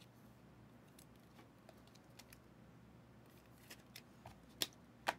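Faint clicks and ticks of Prizm football trading cards being handled and flipped through by hand, with two sharper clicks near the end.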